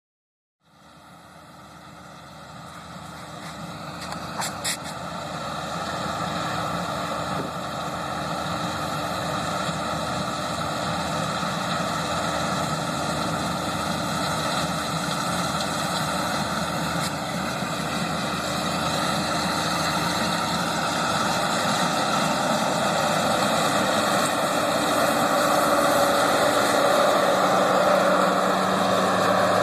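Combine harvester running steadily during soybean harvest. It grows louder over the first several seconds, with two brief clicks about four seconds in.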